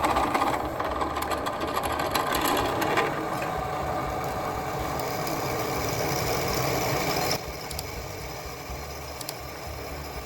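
A power tool's motor running steadily, its sound dropping to a lower level about seven seconds in.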